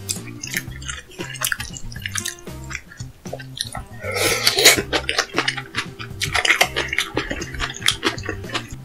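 Close-miked eating sounds: quick wet mouth clicks and smacks, with a longer wet rush about four seconds in. Background music with a steady repeating bass runs underneath.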